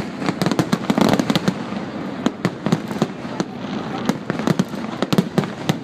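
Fireworks display going off: a dense, rapid run of bangs and crackling pops, several a second.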